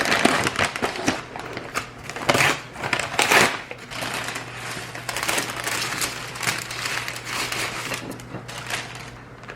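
Plastic food packaging crinkling and rustling, with many small clicks and crackles, as delivered food is unwrapped and handled.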